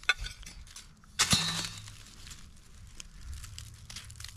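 Digging in soil to free a buried metal object: scraping, crunching and tearing of dirt and roots, with one sharper, louder scrape about a second in.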